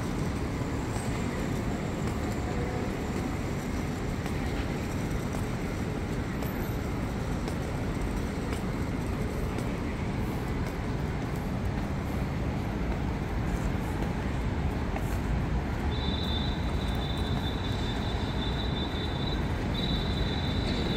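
Steady city background noise: an even, low rumble of distant traffic. About three-quarters of the way through, a thin high-pitched steady whine joins it, breaks off once briefly near the end, and continues.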